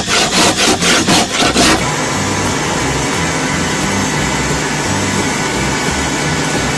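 A rasp scraping in quick even strokes, about four a second, shaping the bamboo knife handle. After about two seconds it gives way abruptly to a steady rushing hum from the charcoal forge's air blower.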